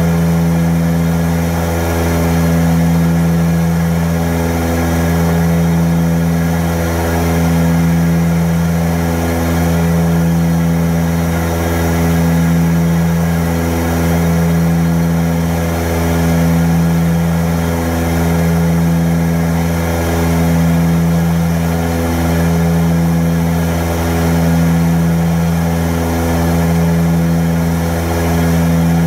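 Antonov An-24's twin Ivchenko AI-24 turboprops droning steadily in flight, heard inside the cockpit. The drone swells and fades in a slow regular beat about every two seconds, the sign of the two propellers turning slightly out of step.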